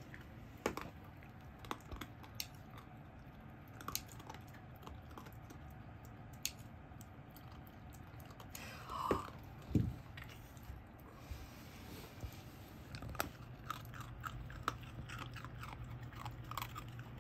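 Plier-type dog nail clippers snipping a puppy's claws: irregular sharp clicks and crunches, several in quick succession near the end. About nine seconds in, a brief squeak followed by a thump.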